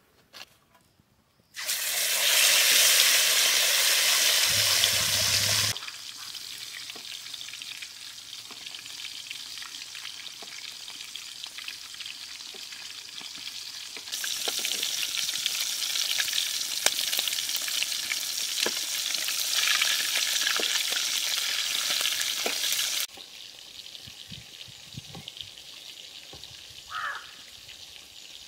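Pieces of gania fish frying in hot mustard oil in a kadai: a loud, steady sizzle with scattered pops. It starts abruptly about a second and a half in, drops to a quieter sizzle, swells again in the middle, then settles lower near the end.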